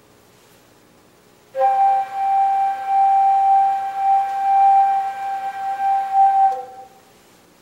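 A single hand-held organ pipe blown, sounding one steady, flute-like note for about five seconds. A brief lower note sounds as it starts and again as it stops.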